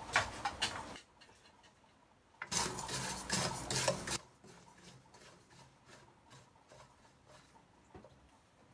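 Wooden spoon stirring and scraping coarse salt around a stainless steel pan as it is dry-roasted, the grains rasping against the metal. A short bout comes at the start and a longer one about two and a half to four seconds in, followed by only faint ticks.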